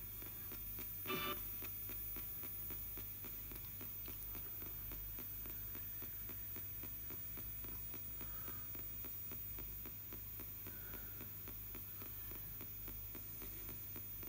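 ITC Research Device spirit box sweeping the AM band, giving steady hiss and hum broken by rapid clicks as it jumps from station to station. About a second in, a brief louder snatch of a station comes through.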